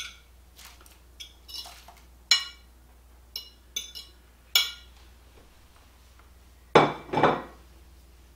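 A metal fork clinking and scraping against a plate as shredded chicken is pushed off into a crock pot, in short sharp taps spread over several seconds. A louder, longer clatter of dishes comes near the end.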